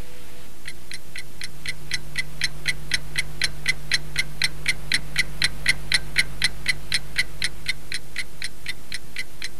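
Mantel clock ticking steadily, about four ticks a second. The ticks fade in about half a second in, grow louder toward the middle and fade away near the end, over a faint steady low hum.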